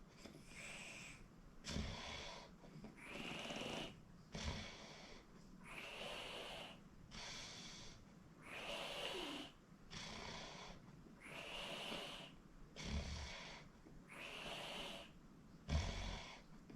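A sleeper snoring: an even rhythm of rasping breaths in and out, a new breath about every second and a half. A few short, deep, louder sounds stand out, one near the start and two near the end.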